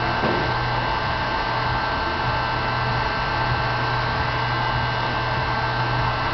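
Homemade linear Stirling engine prototype running: a steady low hum under a constant hiss.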